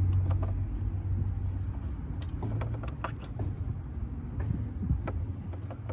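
Light clicks and taps of cold air intake parts being pushed and fitted into a tight engine bay, over a steady low hum.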